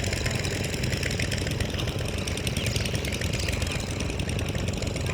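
A small engine running steadily, with a fast, even pulsing throughout.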